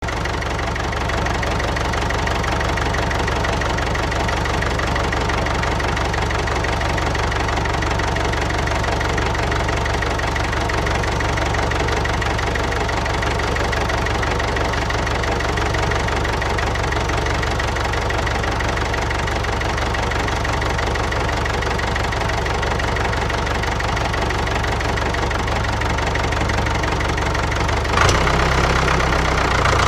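Diesel tractor engine idling steadily with a knocking beat, an engine sound laid over the toy's movements. Near the end the sound changes suddenly as music comes in.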